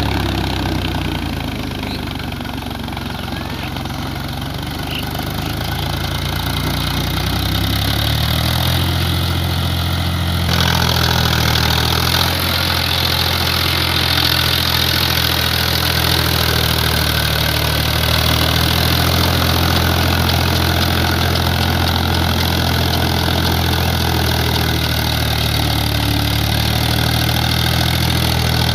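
Tractor diesel engine running steadily under load while pulling a rotavator through wet soil. About ten seconds in, the sound switches abruptly to a slightly louder, brighter engine sound: the Powertrac Euro 50 at work.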